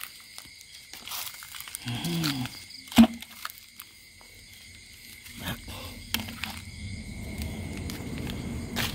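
Night insects calling steadily in high, even tones. A sharp click comes about three seconds in, and a low rumble builds from about five seconds on.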